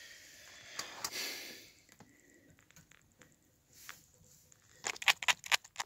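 Kitten biting and pawing at the wire bars of its cage: a soft rustle in the first two seconds, then a quick run of sharp metallic clicks and rattles near the end.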